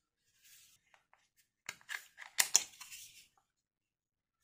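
Plastic clicks and scrapes of the remote control's battery cover being unclipped and slid off, in a short run about two seconds in.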